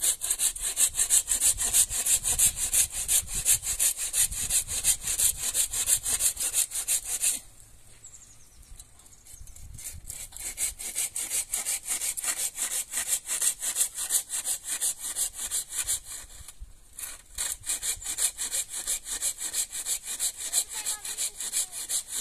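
Hand saw cutting firewood with quick, steady back-and-forth strokes, about three a second. The sawing stops for a moment about seven seconds in and again briefly after about sixteen seconds.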